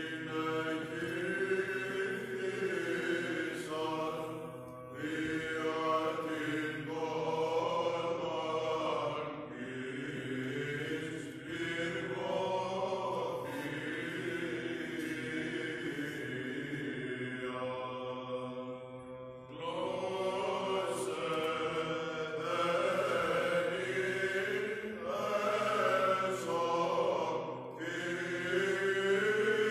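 A group of male Orthodox cantors chanting a Byzantine hymn, the melody moving in phrases over a steady low held note.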